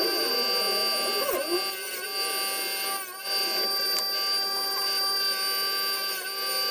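Electric disc sander motor running with a steady whine made of many tones. Its pitch sags briefly a few times as a small wooden piece is pressed against the spinning sanding disc.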